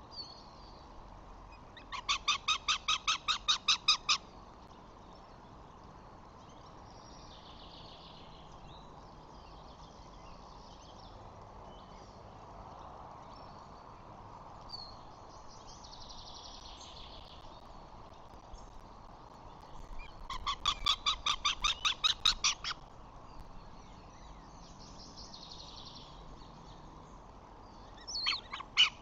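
A bird's rapid chattering call, about eight sharp notes a second, in two bursts of about two seconds each, with a third burst starting near the end.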